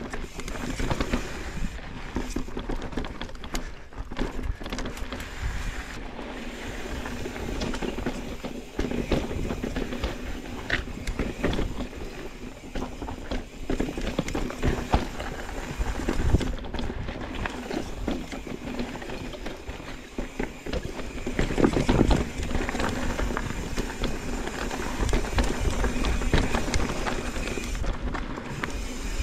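Mountain bike riding down a rough, rocky dirt trail: tyres crunching over dirt and rock, with frequent sharp clattering knocks from the bike and a steady rumble of wind on the microphone.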